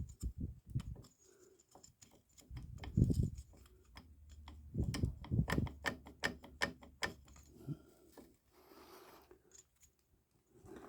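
Hand tools and metal parts being handled: a run of small clicks and knocks, with louder clattering about three seconds in and again from about five to seven seconds in.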